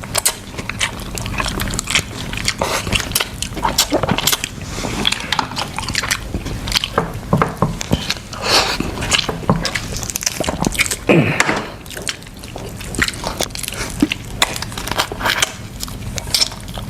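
Crab being cracked open and eaten by hand in a thick sauce: a steady run of sharp shell cracks and clicks, wet sticky sauce sounds and chewing.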